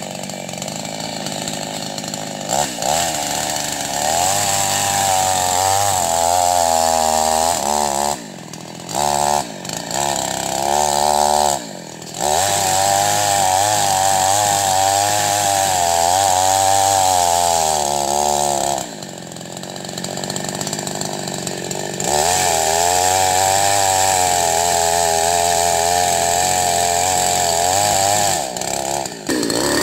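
Chainsaw cutting into an agarwood (gaharu) tree, its engine pitch rising and falling as the chain bites and eases. It drops back to a quieter idle several times, for about three seconds past the middle.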